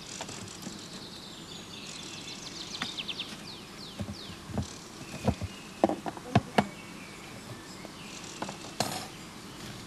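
Honeybees buzzing around open hives, with a handful of sharp knocks and clicks between about four and seven seconds in and one more near the end.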